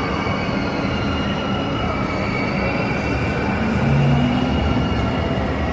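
Amusement ride machinery running: a steady loud rumble with faint high squealing tones over it, swelling slightly about four seconds in.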